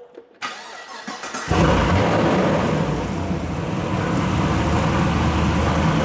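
LS V8 of a Chevrolet Caprice PPV cranking on the starter for about a second, then catching and settling into a steady idle, started on a freshly replaced spark plug after the old one was found broken and arcing inside.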